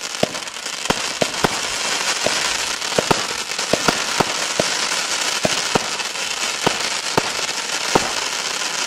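Consumer firework battery (a 9-shot, 20 mm cake) firing: a continuous hiss and crackle with about twenty sharp pops spread through it.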